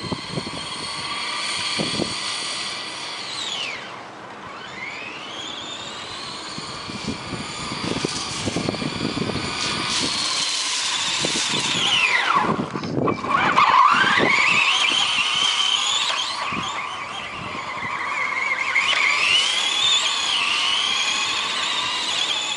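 Electric RC car's motor whining, its pitch rising and falling again and again as the car speeds up and slows down, dropping sharply about halfway through and climbing again, with tyres splashing through puddles on wet pavement.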